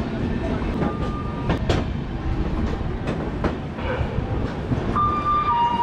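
Swatantrata Senani Express coaches rolling along a platform, heard from the open coach door: a steady rumble of wheels on rail with irregular clacks over the joints. A brief high tone sounds about a second in, and two short high tones, the second a step lower, come near the end.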